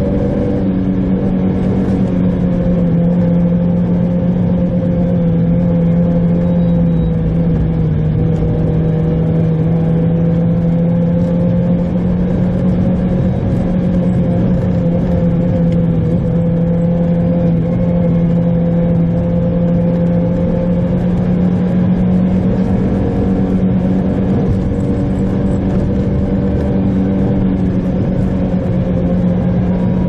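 Mitsubishi Pajero Mini kei SUV engine running at a steady cruise, heard from inside the cabin as an even hum, with the rumble of tyres on packed snow. The engine's pitch dips slightly about eight seconds in, then picks up again.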